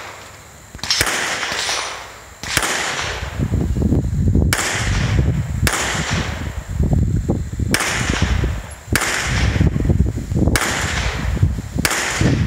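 Springfield XD(M) 5.25 9mm pistol firing single shots, about eight in all, roughly one every second and a half, each a sharp crack with a trailing echo. A low rumble fills the gaps between shots.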